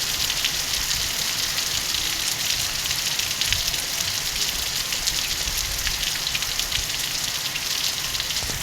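Steady rain falling: an even, dense hiss speckled with many small drop ticks.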